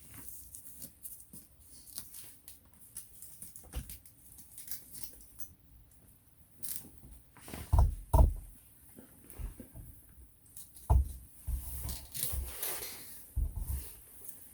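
Scattered knocks, taps and rustling handling noise, with two heavy low thumps about eight seconds in and a cluster of further thumps and knocks near the end.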